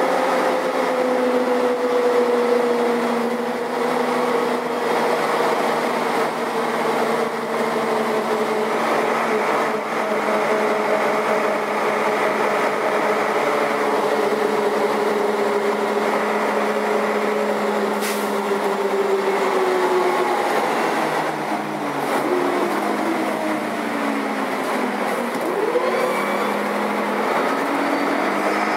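Karosa B941 articulated city bus running, heard from inside the bus: engine and drivetrain with a whine that falls slowly in pitch over about twenty seconds, then a few short rising and falling tones near the end.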